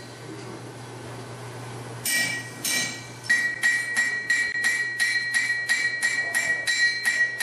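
Blacksmith's hand hammer striking hot steel bar stock on an anvil. Two blows come about two seconds in, then a steady run of about three blows a second, each leaving a bright ring from the anvil.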